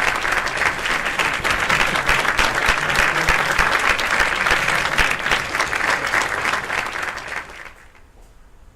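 Congregation applauding, a dense clatter of many hands clapping that dies away near the end.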